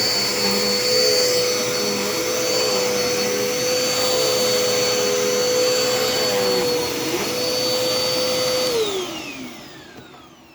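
Dirt Devil Endura Reach vacuum cleaner running steadily with a high motor whine. About nine seconds in its motor spins down, the whine falling in pitch as the sound fades out.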